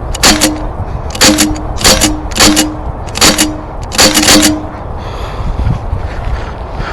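Air gun firing a quick string of about seven shots over four seconds, some in close pairs, each crack followed by a brief ringing tone, then a pause.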